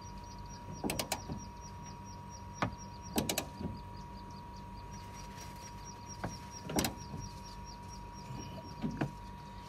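A wrench tightening loose strut top-mount bolts under a car's hood: a handful of sharp metallic clinks and scrapes, with a light even ticking for a few seconds in the middle.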